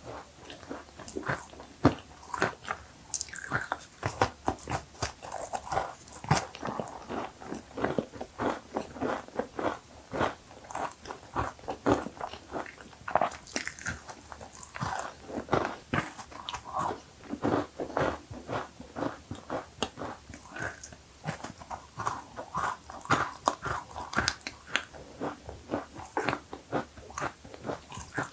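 Close-miked eating of cookies: crunchy bites and steady chewing, with many small crackling clicks several times a second.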